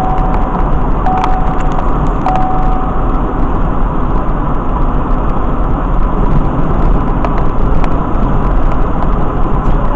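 Steady road and engine noise inside a car cruising on a freeway, picked up by the dashcam microphone. A short steady tone sounds three times in the first three seconds.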